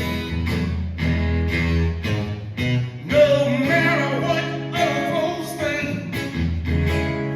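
Live acoustic blues: an acoustic guitar strummed in a steady rhythm, with a man's voice singing a wavering, drawn-out line in the middle.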